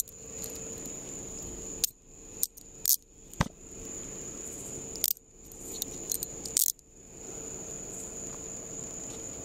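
Handcuffs being put on: a series of sharp metal clinks and ratchet clicks over a few seconds, over the steady high chirring of crickets.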